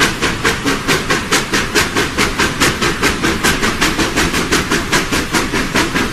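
Steam locomotive (Georgetown Loop Railroad No. 40) chuffing steadily as it runs, its exhaust beats coming evenly at about five a second with a hiss of steam.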